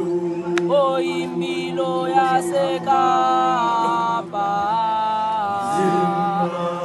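Group of schoolboys singing a gwijo a cappella: a lead voice carries a moving melody over a low chord held steadily by the group.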